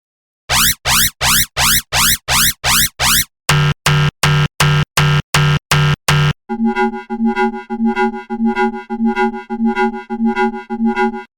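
Synthesized science-fiction alarm sounds, three in a row. First a rising sweep repeats about three times a second. Then comes a rapid pulsing beep, and after that a slower pulsed alarm tone, about two beats a second.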